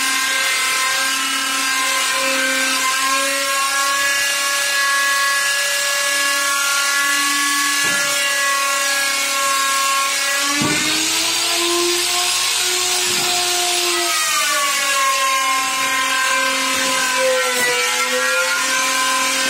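Handheld electric router cutting a Corian solid-surface countertop, its motor running with a steady whine. About halfway through, the pitch rises for a few seconds, then settles back down.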